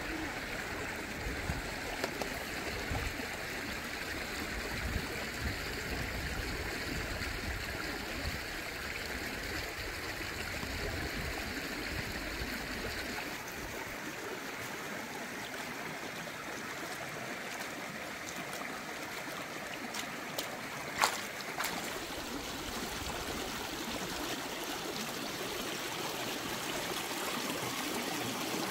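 Shallow stream running steadily over rocks. The low rumble drops away about halfway, and a single sharp knock sounds about two-thirds of the way through.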